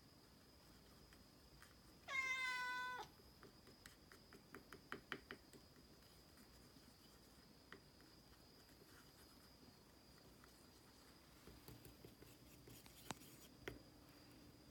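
Norwegian Forest Cat gives a single meow about two seconds in, lasting nearly a second, followed by scattered faint clicks. A few more light clicks and one sharp tap come near the end.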